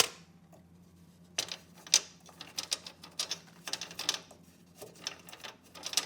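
A sharp click, then from about a second and a half in a quick, irregular run of hard clicks and scrapes: a small rock being prodded and worked loose where it is wedged against the car's underbody.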